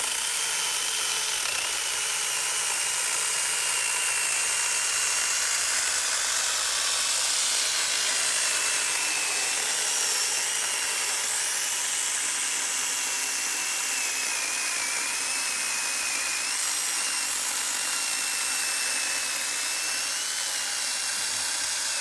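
Veitorld mini battery chainsaw cutting through a thick cedar log. Its electric motor whines steadily under load, the pitch wavering slightly, with the chain rasping through the wood.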